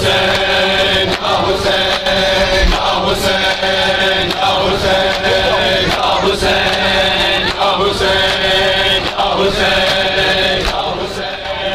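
A large crowd of men chanting a Shia mourning lament (noha) together, with the sharp repeated slaps of hands beating on bare chests (matam) running through the singing.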